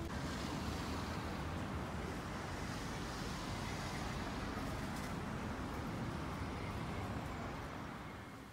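Steady road traffic noise from cars passing on a city street, fading out near the end.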